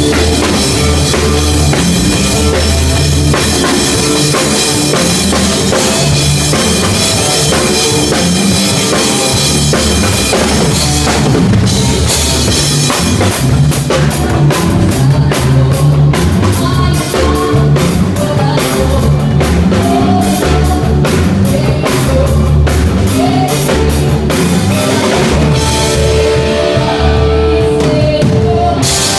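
Rock band playing loudly, the drum kit most prominent with bass drum and cymbal hits throughout. Near the end the cymbals drop out and held notes carry on.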